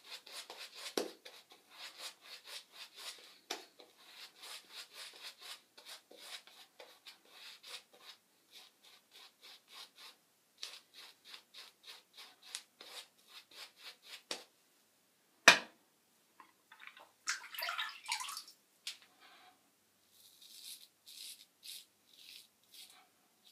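Merkur Slant double-edge safety razor with a carbon steel blade scraping through lathered stubble in quick, short strokes, pausing now and then. A single sharp knock comes about halfway through, followed shortly by a brief louder rasp.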